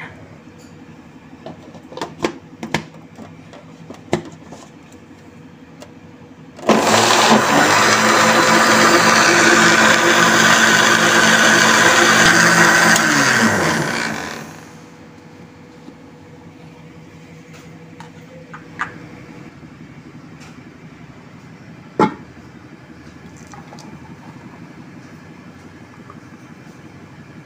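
Electric countertop blender blending a milkshake: the motor starts abruptly, runs for about eight seconds, then winds down with falling pitch. A few light clicks come before it, and a single sharp knock comes later.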